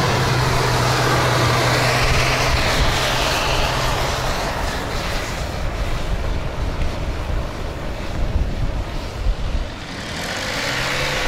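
Off-road vehicle's engine running, a steady low hum for the first few seconds that then fades under a broad rushing noise, with the engine note coming back near the end.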